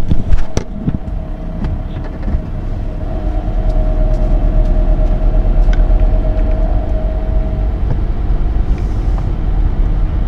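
Car engine and road rumble heard from inside the cabin as the vehicle pulls away and gathers speed, with a few knocks in the first second and the engine note growing louder from about three seconds in.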